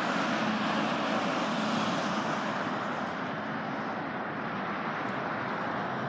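Steady road traffic noise, a wash of tyre and engine sound from passing cars, easing slightly about halfway through.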